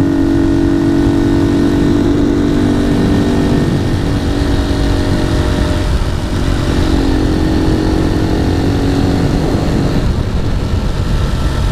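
Honda CG 150 Titan's single-cylinder four-stroke engine running at a steady cruising pace through an aftermarket GeMoto sport exhaust, under heavy wind noise buffeting the helmet microphone. The engine note eases off briefly about six seconds in and again near the end.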